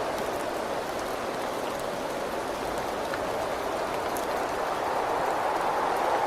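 Rain falling steadily, an even rushing hiss with scattered sharp ticks of individual drops.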